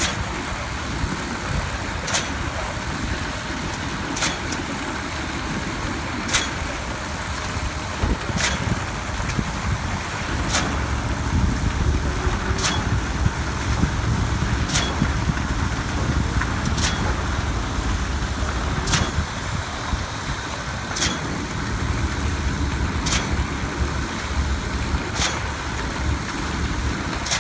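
Heavy diesel machinery used for pouring concrete, running steadily with a low rumble that swells and eases. A sharp click repeats about every two seconds.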